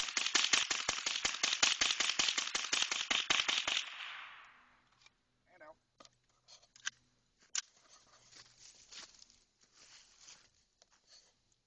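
AR-15 rifle with a .22 rimfire conversion firing a rapid string of shots, about seven a second, that stops about four seconds in. After that there are only a few faint clicks and knocks.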